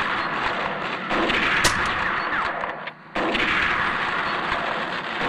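Film battle sound effects: dense, continuous gunfire and artillery, with one sharp shot about a third of the way in. The sound drops out for a moment a little past halfway, then carries on.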